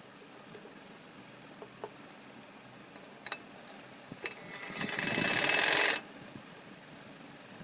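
Sewing machine stitching in one short run of about a second and a half, getting faster and louder, then stopping suddenly. Two sharp clicks come just before it.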